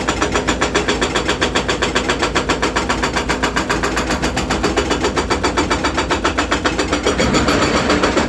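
Hydraulic breaker hammer on a Volvo excavator pounding in a fast, even rhythm of about seven blows a second, over the machine's running engine.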